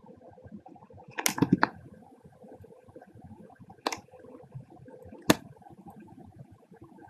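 Computer mouse clicks: a quick cluster of sharp clicks about a second in, then two single clicks about a second and a half apart, over a faint steady background hiss.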